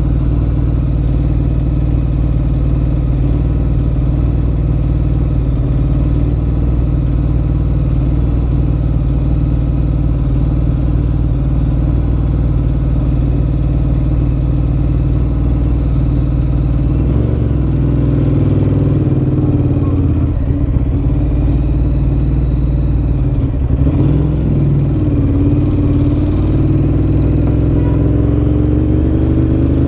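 Ducati Monster 1100 EVO's air-cooled L-twin running through a Termignoni exhaust. The engine note holds steady for the first half, then rises and falls in pitch several times through the second half as the bike speeds up and eases off.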